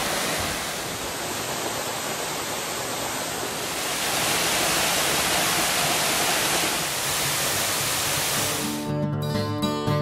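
Steady rush of fast-flowing mountain creek water. About nine seconds in, background music with a plucked guitar comes in over it.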